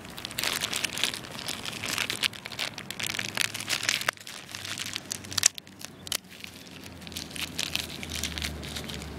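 Packaging being crinkled and torn open by hand to get a new wrist pin bearing out, in dense crackling spells with a pause and one sharp click about halfway through.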